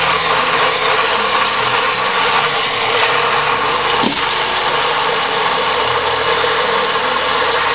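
Cold tap water from a sink sprayer pouring steadily in several fine streams into a stainless steel pot of blanched kale, flash-cooling it to stop the cooking.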